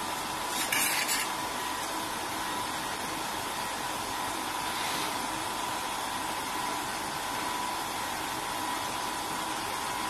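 Steady background hiss with a faint steady whine under it, and a short, louder burst of sharp hiss about a second in.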